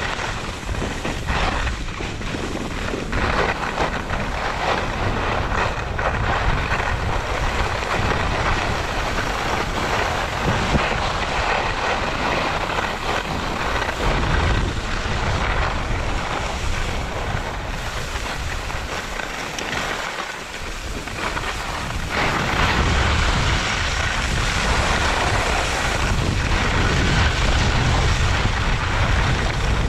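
Skis sliding and scraping over packed, groomed snow, with wind rushing over the microphone: a steady rush that eases briefly about two-thirds of the way through, then comes back louder.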